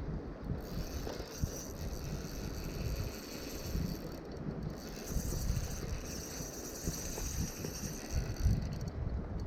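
Abu Garcia Revo Premier spinning reel working against a large trout on 2 lb line, the reel mechanism running under load during the fight, with wind rumbling on the microphone.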